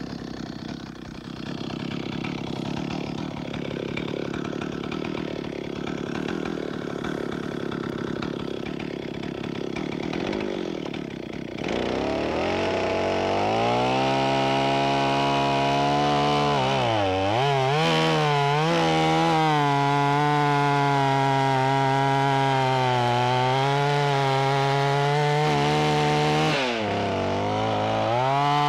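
Two-stroke chainsaw running roughly at idle, then opened up to full throttle about twelve seconds in and cutting down through a large log. The pitch sags twice as the chain loads up in the wood, most deeply a few seconds into the cut and briefly near the end, then climbs back to a high steady whine.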